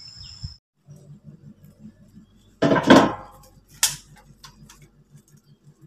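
Water stirred and splashed by hand in a large metal bowl, with a loud splash about three seconds in and a sharp clink just after. A low hum pulses several times a second underneath, and crickets trill for the first half second.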